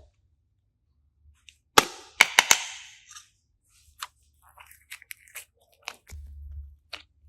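A quick group of four sharp snaps about two seconds in, with a short hiss trailing them, followed by scattered lighter clicks.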